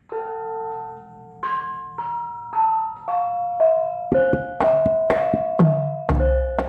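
Javanese gamelan bonang kettle gongs struck one note at a time, ringing, playing the opening phrase (buka) of a lancaran. About four seconds in the notes come faster and other gamelan instruments join, with a deep low stroke near the end.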